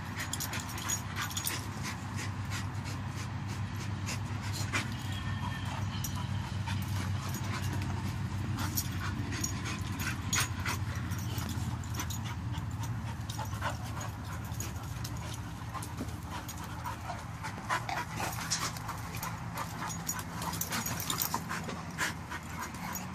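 Dogs play-wrestling, with heavy panting and scuffling and many short sharp clicks and scrapes throughout, busier in the second half.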